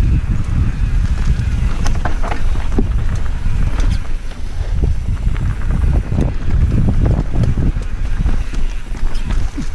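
Wind buffeting a helmet-mounted camera's microphone as a mountain bike rides fast down a dirt trail, under a loud, steady low rumble. The bike's rattles and knocks over bumps and roots come through all the way.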